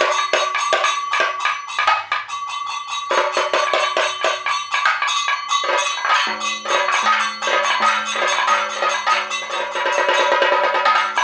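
Kathakali percussion accompaniment: a chenda drum beaten with sticks in fast, even strokes, with ringing metal percussion sustained beneath. A low steady tone joins about six seconds in.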